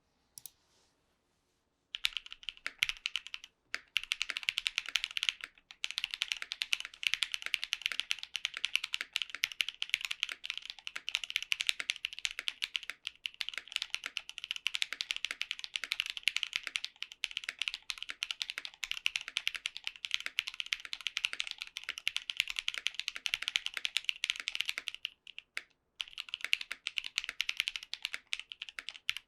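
Rapid, continuous typing on a Tofu65 mechanical keyboard with lubed Techno Violet linear switches (nylon housings, long-pole stems, 58 g double springs), an FR4 half plate and doubleshot ABS keycaps. The typing starts about two seconds in and has a few short pauses.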